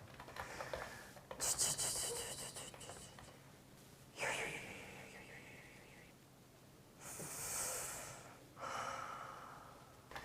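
Exaggerated weary sighs and puffs of breath, about four in a row, each a breathy rush that fades away: the sounds of tired office workers wishing to go home.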